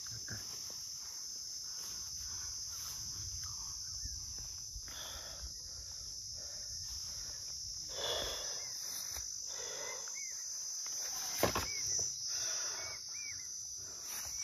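Insects chirring steadily in a continuous high-pitched drone, with a single sharp knock about eleven seconds in.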